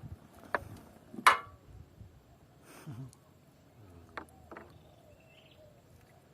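Outdoor background noise with a bird chirping, broken by a few sharp knocks and clicks. The loudest knock comes about a second in.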